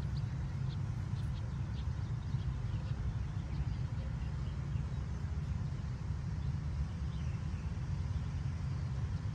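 Open-air ambience: a steady low rumble, with a few faint high chirps now and then.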